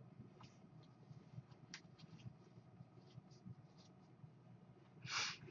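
Near-silent room tone with faint, scattered small clicks, and a short hiss-like burst about five seconds in.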